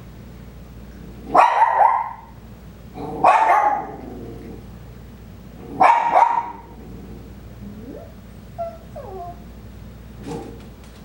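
Dogs barking in three loud bursts of a few barks each, then a few fainter short whines. The barking is set off by visitors in the house.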